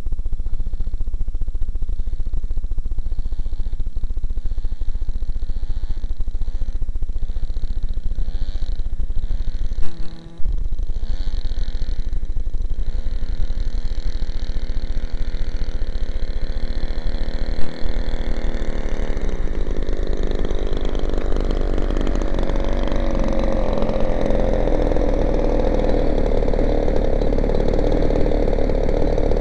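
Zenoah 20cc two-stroke gas engine of an RC plane running, heard close with heavy low rumble, and settling to a steady idle about twenty seconds in as the plane sits on the grass with its propeller turning. A sharp knock about ten seconds in and another a few seconds later.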